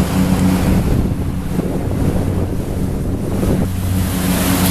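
Motorboat engine running steadily under way, a low hum, with water rushing past the hull and wake and wind buffeting the microphone. For a couple of seconds in the middle the hum drops back under the rush.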